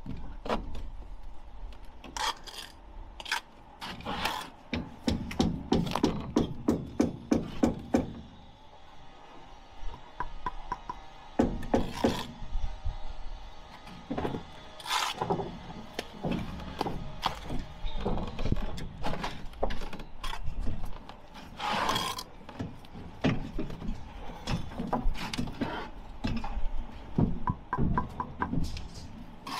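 Bricklaying trowel working bricks and mortar: a run of sharp taps and scrapes as bricks are knocked down into their mortar bed. The taps come thick and fast for a few seconds about four seconds in.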